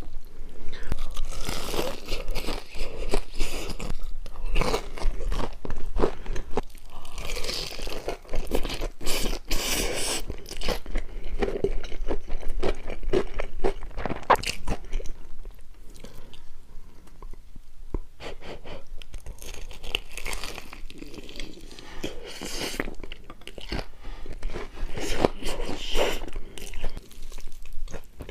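Close-miked eating: a person biting, crunching and chewing food in many quick, irregular mouthfuls.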